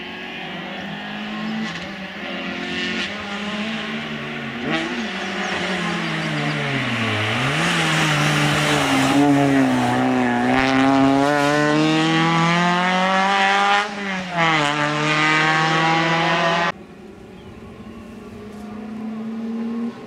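Peugeot 206 rally car at speed, its engine climbing in pitch through the gears with short dips at each shift and growing loud as it passes close. About three-quarters of the way in the sound cuts off suddenly and is replaced by the same kind of engine, fainter and farther off.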